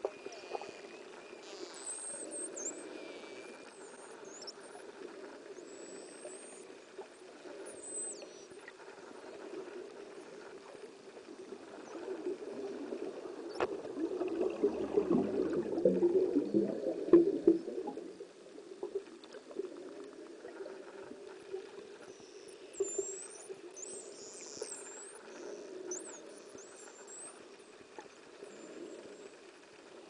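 Dolphins whistling underwater: short, high, squeaky whistles that rise and fall, in clusters near the start and again in the last third, with a few sharp clicks, over a steady underwater hum. About halfway through, a rush of bubbles swells louder for a few seconds.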